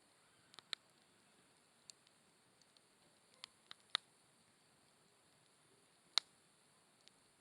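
Wood fire crackling: scattered sharp pops at irregular gaps over a quiet background, a cluster of them about three to four seconds in and the loudest a little after six seconds.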